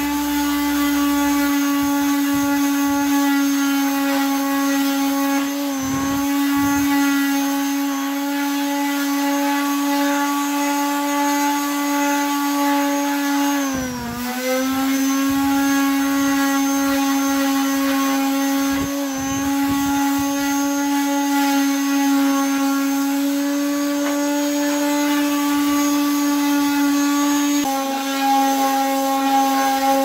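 Electric palm sander running steadily with a buzzing hum as it sands rust and flaking paint off a washing machine's sheet-steel frame. The pitch dips briefly about halfway through as the sander is pressed harder, with a few light knocks as it bumps the metal.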